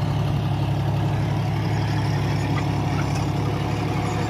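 John Deere 5204 tractor's diesel engine running steadily, driving a PTO rotary tiller (rotavator) that churns the soil behind it, an even low hum throughout.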